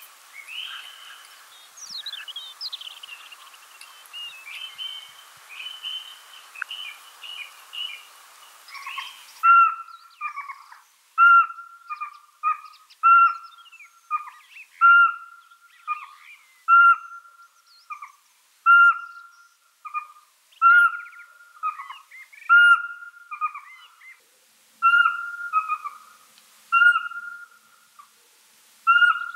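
Pygmy owl singing: a clear whistled note repeated about every two seconds, with softer notes between. For the first third there are higher, thinner bird chirps over a steady hiss instead.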